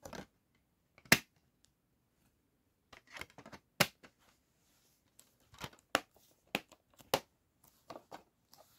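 Plastic DVD case being handled, with discs pressed back onto their centre hubs and the case shut. About five sharp plastic clicks, with softer scraping and rattling between them.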